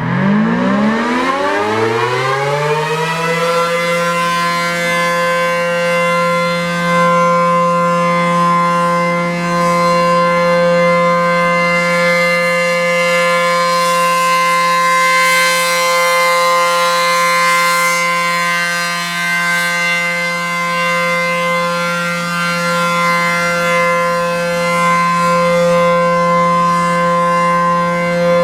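ACA P-10 outdoor warning siren winding up from a low pitch over about three seconds, then holding a steady, loud tone: a scheduled siren test.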